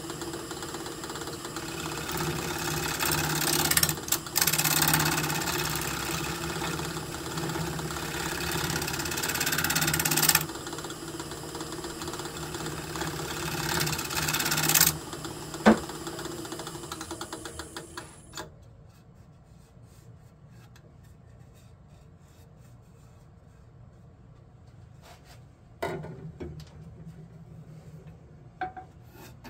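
Wood lathe running while a gouge cuts a spinning cherry-burl blank, the cutting hiss coming in surges over the motor hum. The lathe stops about two-thirds of the way through, leaving a few light knocks near the end.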